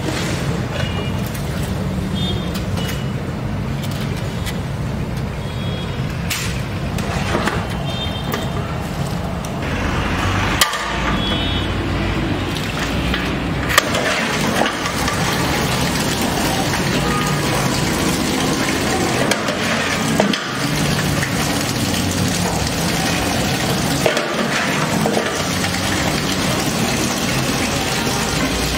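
Low street-traffic rumble, then from about ten seconds in water running from a tap into a large aluminium pot and poured over a basin of rice, a steady rushing hiss.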